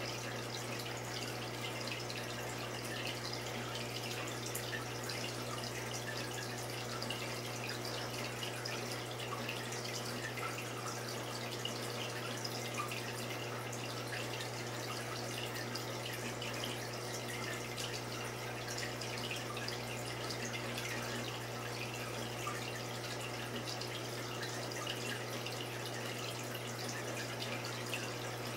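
Saltwater aquarium's water circulation: steady trickling and dripping water over a constant low hum.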